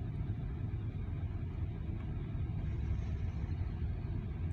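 Diesel locomotive engine running with a steady low rumble as it hauls a grain hopper train.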